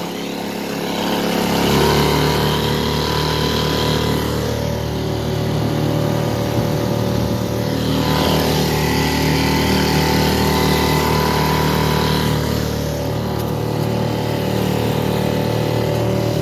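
Small boat motor running steadily under way, picking up about two seconds in, with water splashing and hissing along the hull as the boat crosses choppy water.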